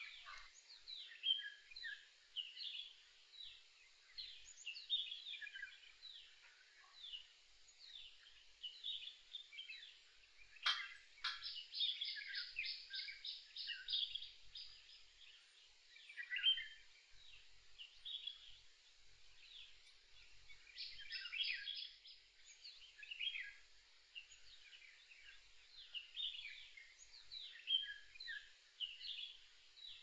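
Many songbirds calling over one another with short chirps and whistles. A rapid trill comes in about eleven seconds in and another around twenty-one seconds, with one sharp click just before the first trill.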